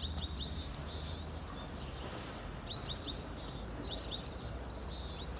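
Small birds chirping: short, high chirps in quick clusters of two or three, repeating, over a steady low rumble of outdoor background noise.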